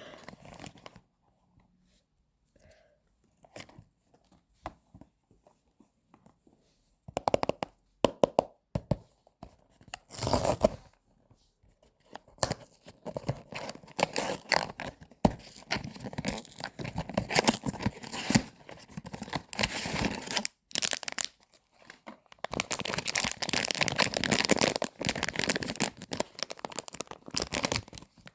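Blind-box packaging being torn open and crinkled by hand. It starts with a few faint handling clicks, then comes in short tearing bursts, and turns into steady crinkling that grows loudest in the last few seconds.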